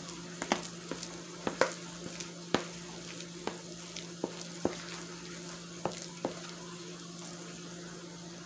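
A plastic spoon stirring thick mashed potatoes in a bowl, knocking and scraping against the bowl about a dozen times at uneven intervals, stopping about two-thirds of the way through. Underneath, a steady low hum and the light sizzle of chicken deep-frying in oil.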